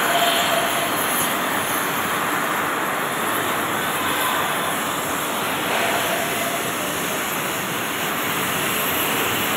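Oxy-fuel gas cutting torch burning through a thick iron billet: a steady hiss from the flame and cutting-oxygen jet, unbroken and even in level.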